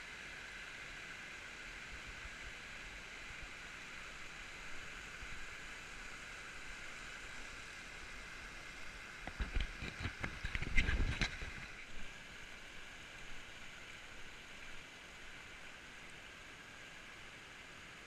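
Swollen forest stream running high after heavy water, a steady rushing of water over stones. About halfway through, a short cluster of knocks and low rumbles rises above it for a few seconds.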